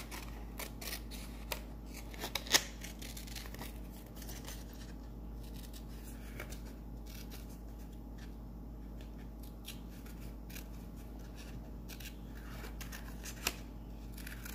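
Scissors cutting through green construction paper: short, crisp snips at irregular intervals, several close together in the first few seconds with the loudest about two and a half seconds in, then fewer and further apart.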